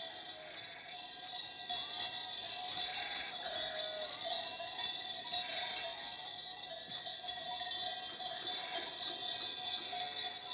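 Many small bells clinking and ringing without a break, with a few short animal-like calls between them.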